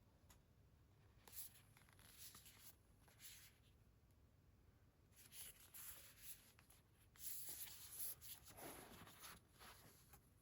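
Faint rustling and scraping of paper or packaging being handled, in short scratchy bursts with the longest stretch near the end.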